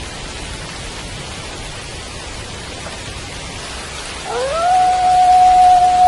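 Steady rain falling, and about four seconds in a wolf begins a howl, rising in pitch and then holding one long steady note.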